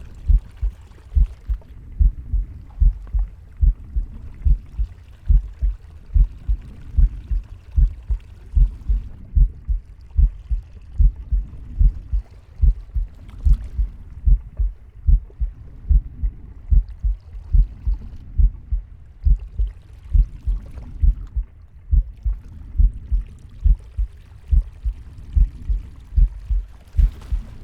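Heartbeat recorded close against the body: a steady, even run of low thumps. Soft breathing swells and fades behind it every two seconds or so.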